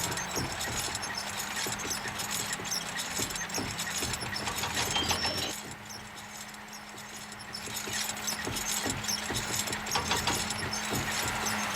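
A motor running at a steady pitch, with many clicks and rattles over it; its pitch falls away near the end as it winds down.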